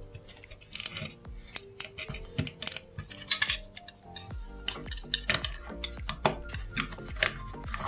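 Small, irregular metal clicks and taps of a watchmaker's fine screwdriver on a pocket-watch movement and its case as the winding stem is secured.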